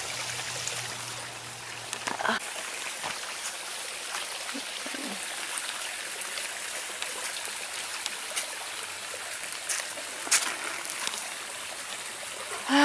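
Shallow woodland stream trickling steadily over rocks, with a few scattered knocks about 2 and 10 seconds in.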